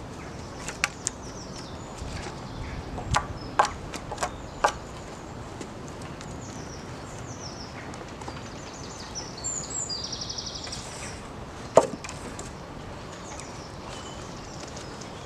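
Wooden knocks as long deadwood poles are handled and laid across log supports: a cluster of sharp knocks in the first few seconds, then one louder knock near the end. Birds chirp throughout.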